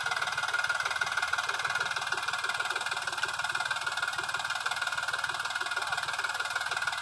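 Sonalika DI 47 RX tractor's diesel engine running steadily with a rapid, even chug, with a steady high-pitched whine over it.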